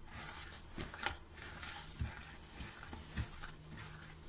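Hands kneading a soft, wet yeast dough in a plastic bowl: irregular sticky squishing and rubbing, with two soft low thumps about two and three seconds in.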